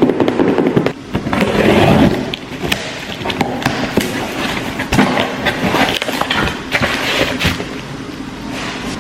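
A parcel being unwrapped by hand: packaging rustling and crinkling, with many small knocks and clicks. It is loudest for the first two seconds or so.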